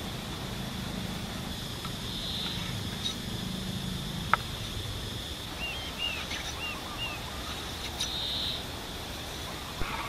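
Outdoor rural ambience: a steady high hum with birds chirping several times a little past halfway, and one sharp knock a little before halfway.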